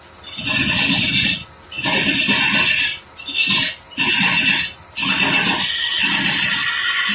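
A woodworking power tool cutting in repeated bursts of about a second each, with short breaks, then running on without a break from about five seconds in.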